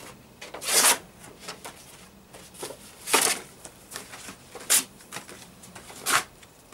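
Paper being torn by hand: four short, loud rips with lighter rustling between them.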